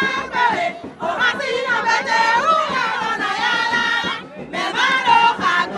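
A crowd singing and chanting together, with a woman's voice loud and close; the singing breaks off briefly twice and resumes.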